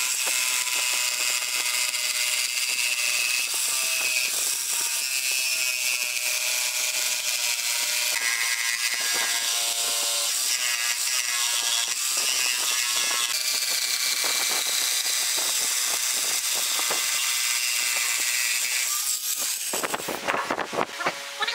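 Electric jigsaw running steadily, its blade cutting a curved line through a thick wooden board. It stops near the end, followed by a few short knocks.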